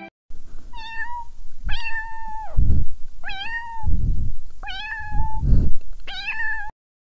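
Kitten meowing five times, about a second apart, each meow rising and then held. Loud low muffled bumps fall between the later meows.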